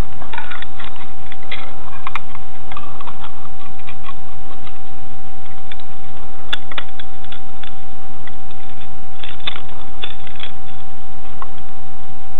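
Scattered light clicks and scrapes of a metal putty knife smoothing sealant flat, over a steady thin whine.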